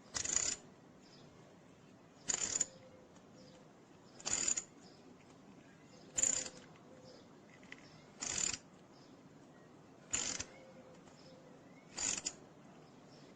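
Hand tap cutting a new thread in soft aluminium for a Helicoil insert: a short rasping sound about every two seconds as the tap wrench is turned, seven times.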